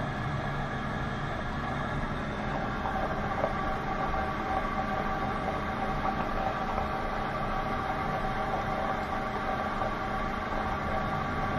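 Cooled beer wort running from a tube into a glass carboy fermenter, a steady splash of liquid inside the glass.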